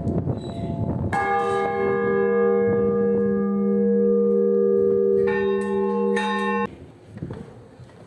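Church bells ringing: a bell is struck about a second in and rings on with a deep hum and bright overtones. About five seconds in, a second, higher-pitched bell is struck over it. The ringing stops abruptly shortly before the end.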